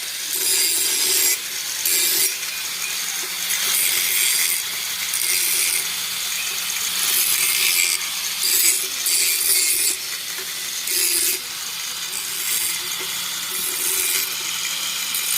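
Hand tool scraping on metal in repeated strokes, about one a second, as the bell is worked over by hand.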